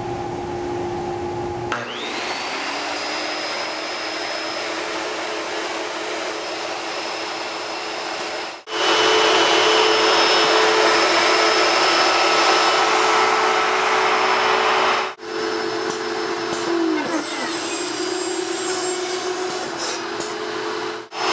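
Electric router and saw motors of an automated tube-cutting machine, run alongside a dust-collection vacuum. About two seconds in the motors spin up with a rising whine, then run in a steady high-pitched whir that breaks off abruptly twice, with a couple of brief falling whines later on as motors wind down.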